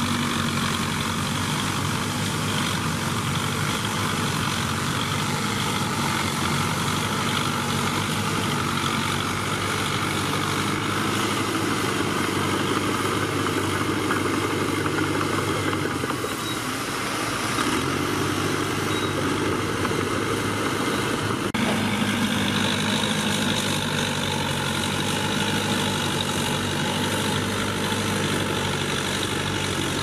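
Diesel engines of crawler bulldozers running steadily, with a small Caterpillar dozer close by pushing soil. The engine note sags briefly a little past the middle, then picks up again.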